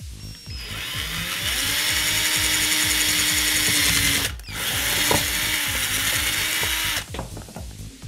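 Cordless power drill boring holes in a car stereo's casing panel: the motor spins up with a rising whine, runs steadily, stops briefly about four seconds in, then runs again for a couple of seconds before stopping.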